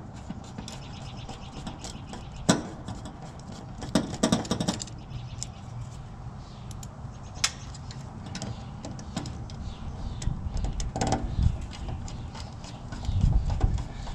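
Scattered clicks, taps and small metallic rattles of hand tools and parts being handled while working on the contactor inside an outdoor AC unit, over a steady low rumble.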